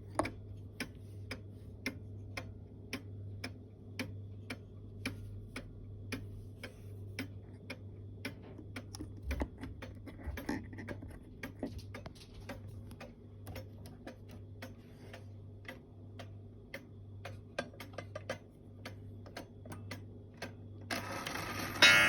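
Antique Black Forest cuckoo clock with a wooden-plate movement ticking steadily, about two to three ticks a second. About a second before the end a louder, rushing sound starts up over the ticking.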